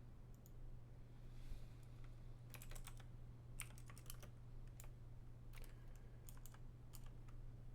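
Faint typing on a computer keyboard: several short runs of key clicks starting a couple of seconds in, over a low steady hum.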